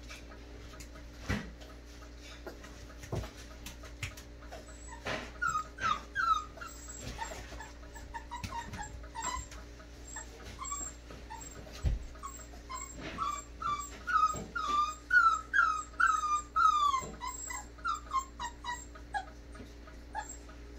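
Four-week-old American bully puppies whimpering in a run of short, high, arching cries, thickest in the second half. A few dull knocks are mixed in.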